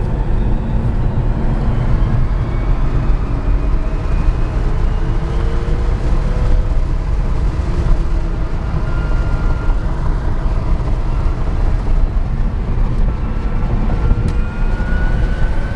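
Cabin of a 1978 Porsche Carrera converted to electric drive with twin WarP 9 DC motors, cruising at highway speed: a steady low road and wind rumble with no engine note, under a faint whine that slowly rises and falls in pitch.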